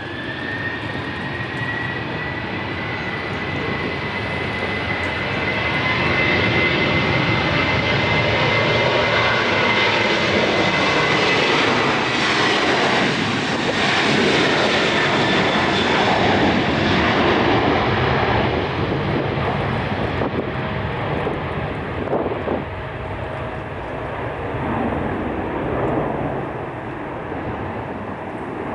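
Airliner engines passing close by. The noise builds to a peak about halfway through and then fades, with a high engine whine that bends slightly in pitch as the aircraft goes past.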